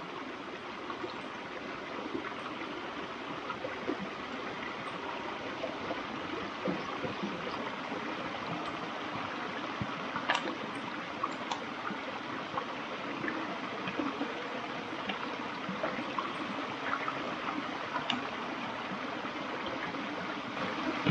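Shallow creek water running over rocks in a steady babble, with a few faint small splashes.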